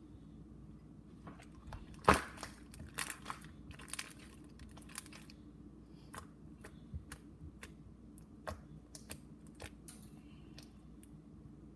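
Bubbly white slime being stretched, pressed and poked on a stone countertop, making irregular sticky clicks and pops as its air pockets burst. There is a sharp burst of them about two seconds in, and they grow sparser later on.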